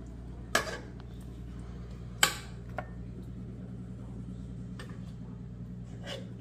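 A few sharp clinks of crockery and cutlery, the two loudest about half a second and two seconds in, over a steady low hum.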